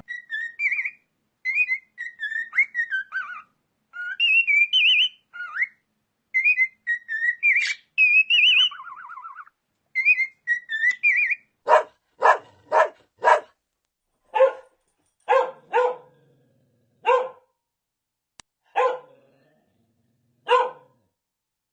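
A dog whining in high, squeaky, rising and falling calls, then giving about ten short, single barks spaced a second or so apart.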